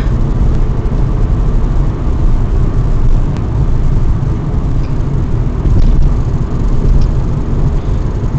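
Steady low rumble of a car driving along the road, engine and tyre noise heard from inside the cabin, with a few faint ticks.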